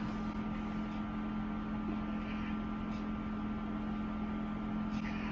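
A steady low hum over a faint hiss, with a few faint brief ticks.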